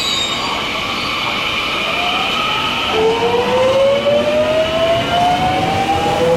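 Electric commuter train pulling away from the platform, its traction motors giving a whine that rises in pitch from about halfway through as it accelerates, drops back near the end and starts climbing again.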